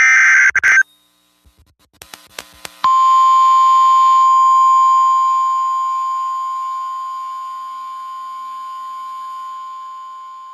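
A brief shrill burst of digital alert-header data and a few faint clicks, then about three seconds in the single steady pitch of the NOAA Weather Radio 1050 Hz warning alarm tone begins and holds, slowly dropping in level. It is the alert tone that signals a warning is about to be read.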